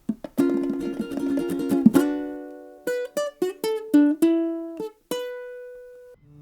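Music on a plucked string instrument: a quick run of rapid plucks, then a string of single plucked notes. The last note rings on and then stops.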